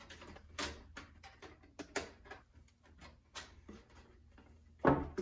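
Pliers and thin perforated sheet metal handled as the seam of a sheet-metal sleeve is pinched together: a string of light, irregular clicks and taps, the loudest a little before the end.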